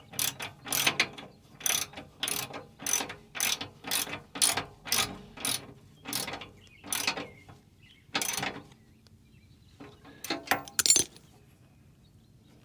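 Hand ratchet wrench tightening the mounting bolts of a bumper driving light, a steady run of ratcheting strokes about two a second that stops about eight seconds in, followed by a few sharper clicks.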